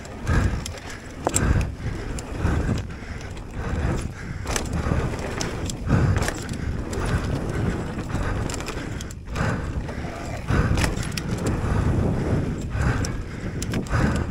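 Giant Reign full-suspension mountain bike ridden fast down a rough dirt trail: a continuous rolling tyre noise with an irregular clatter and jolts as the bike hits bumps.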